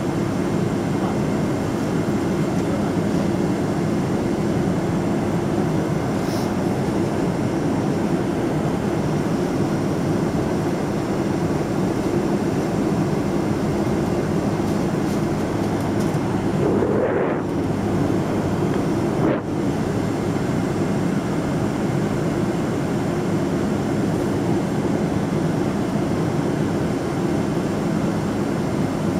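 Steady roar of a Boeing 777-200ER's engines and airflow heard from inside the passenger cabin, with a brief change in the noise around the middle.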